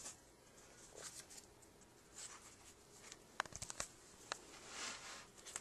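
Faint rustling of the paper and card pages of a handmade book as they are handled and turned, with a quick run of light clicks about three and a half seconds in.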